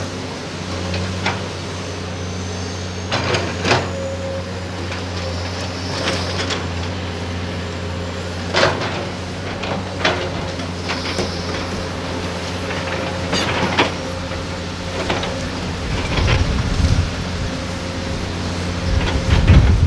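Doosan crawler excavators' diesel engines running steadily under load, with repeated sharp metallic clanks from the buckets and arms as they dig and swing. A heavier low rumble comes in the last few seconds as a load of earth goes into the dump truck.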